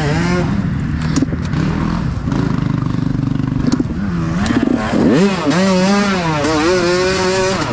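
Dirt bike engine revving hard off-road, its pitch rising and falling with the throttle and climbing steeply about five seconds in, with a few sharp knocks along the way.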